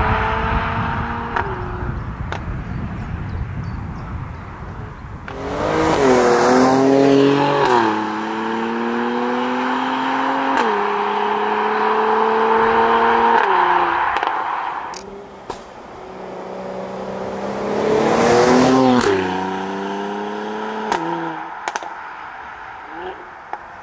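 Mercedes-AMG GLE 43 Coupé's twin-turbo V6 accelerating hard twice, its pitch climbing and stepping down at each upshift of the automatic gearbox. Between and after the pulls the engine eases off, with a few sharp cracks.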